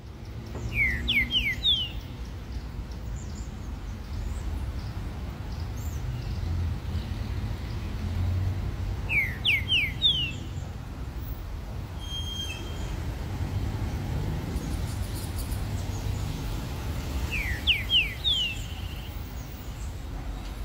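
Green-winged saltator (trinca-ferro) singing three short phrases about eight seconds apart. Each phrase is four quick whistled notes stepping up in pitch.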